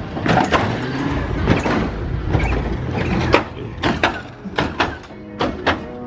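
Lowrider Lincoln Town Cars on hydraulic suspension rolling by on three wheels. A low engine rumble fills the first half, then a run of sharp clacks and clunks follows.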